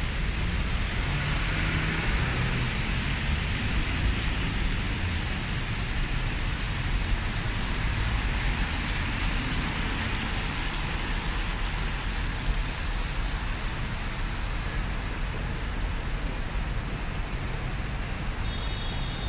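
Steady rain falling, an even hiss with a constant low rumble underneath like traffic on a wet road. A faint short high tone sounds near the end.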